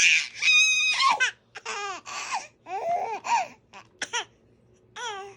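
Baby laughing in a run of short, breathy bursts, with a high squeal about half a second in.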